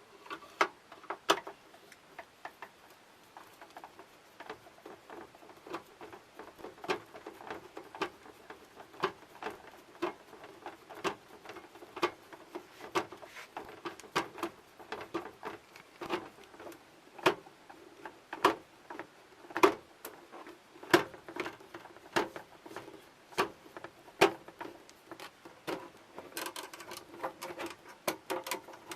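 A screwdriver working on the screws of a rooftop RV air conditioner, giving a run of sharp clicks and ticks, roughly one or two a second and uneven in loudness, coming faster near the end.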